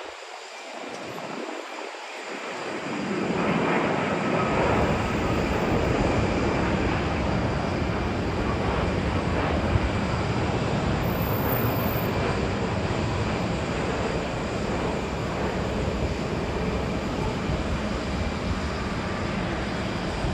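Jet engine noise of a landing Boeing 787 airliner passing low overhead. The rushing sound swells over the first three seconds or so, then stays loud and steady.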